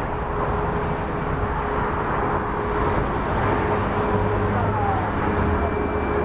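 Boeing 737 MAX 8's CFM LEAP-1B turbofans running at low taxi power as the airliner rolls slowly. It is a steady rush of engine noise with one steady tone held through it.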